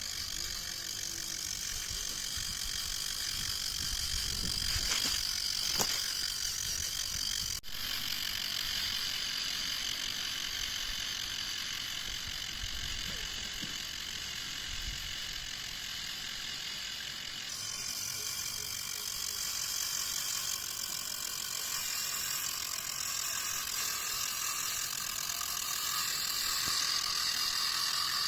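Homemade RC logging truck's small electric drive motors and gearboxes whining steadily. The whine breaks off for an instant about seven seconds in and shifts again a little past halfway.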